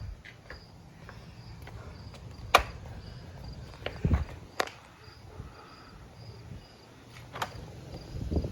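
Insect chirping outdoors: a short high note repeated evenly about twice a second. Three sharp clicks cut through it, the loudest about two and a half seconds in, with a couple of low thumps.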